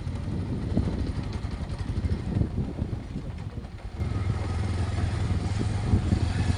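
An uneven low rumble for about four seconds, then after an abrupt change a motorcycle engine running steadily with a low drone, heard while riding on the bike.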